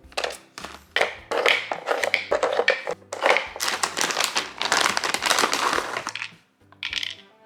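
Rustling, crinkling handling noises in quick irregular bursts, over soft background music.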